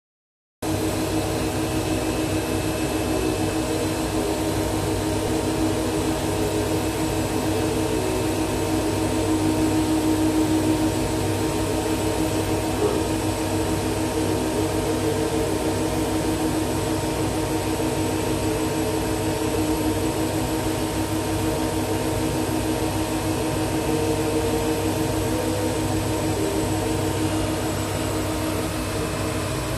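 Laser cutter running as it cuts a sheet: a steady machine hum and whir with a low drone, starting about half a second in, with faint shifting tones as the cutting head moves.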